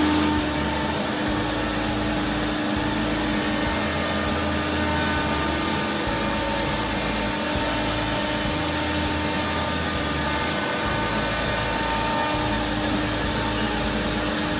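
Router spinning a 1/4" round-over bit in a router table, routing the edges of a wooden board. It makes a steady high-speed whine over a loud rush of noise.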